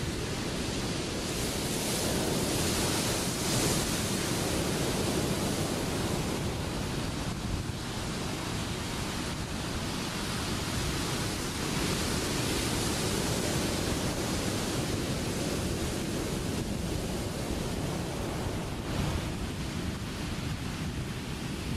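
Ocean surf breaking, a steady rush of white water that swells and eases, with wind on the microphone.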